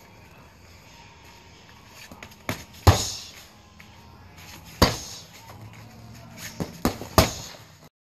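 Gloved punches and bare-shin kicks thudding into a hanging Outslayer heavy bag. A pair of hard strikes lands about two and a half seconds in, a single one near five seconds, and a quick combination near the end.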